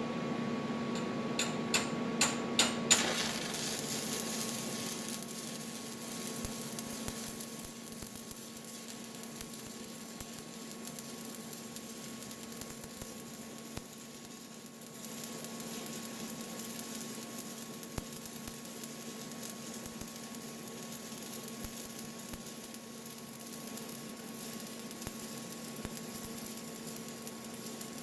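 Stick welding arc crackling and sizzling steadily as a 7018 electrode burns, after a few sharp clicks near the start.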